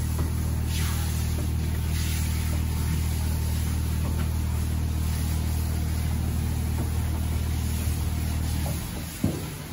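Steady low motor hum from the self-serve dog wash machine. It cuts off near the end and is followed by a single knock.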